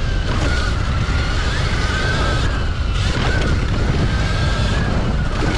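Wind buffeting the microphone of a Sur-Ron electric dirt bike while it is ridden, its electric motor whining, the pitch drifting up and down with the throttle.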